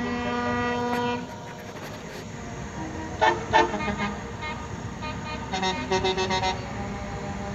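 Truck horns sounding in a convoy: one long held blast that cuts off about a second in, a couple of short toots near three seconds, then a quick run of short toots near six seconds, over the low rumble of the passing trucks.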